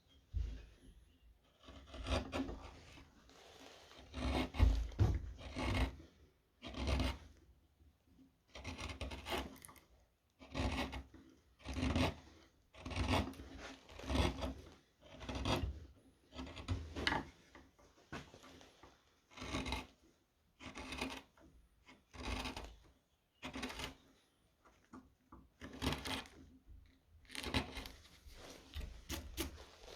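Round gouge chisels paring wood from a handmade spoon, a run of short scraping cuts at roughly one a second with brief pauses between them.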